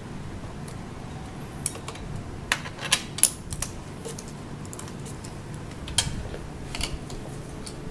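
Metal wrench clicking and tapping against the nuts and bolts of a wicker chair's arm as the locking nuts are fully tightened, in a quick cluster of sharp clicks a few seconds in and a few more about six to seven seconds in.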